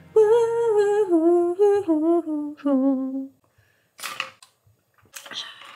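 A woman hums a short descending tune with a wavering pitch for about three seconds. Then come two sharp clicks from a plastic water bottle being handled, and a brief squeak near the end.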